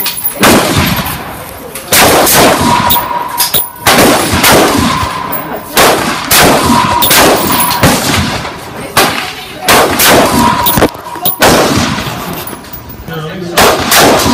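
Rifle shots fired one after another at uneven intervals, about one every one to two seconds, each sharp crack followed by a brief echo under the range's roof.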